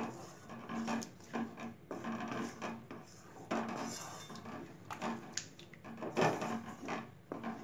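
A spoon stirring and scraping in a cooking pot of tamarind gravy, in a series of irregular scraping strokes, one longer stroke about halfway through.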